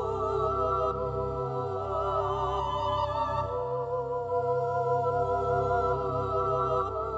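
Background music: slow sustained tones with a wavering, vibrato-like pitch over a steady low drone.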